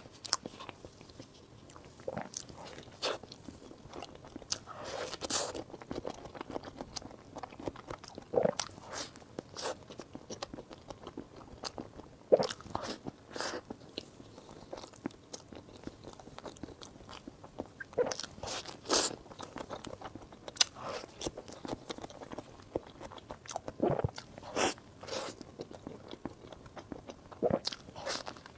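Close-miked eating: a person biting and chewing food, with irregular crisp crunches and wet mouth sounds every second or so.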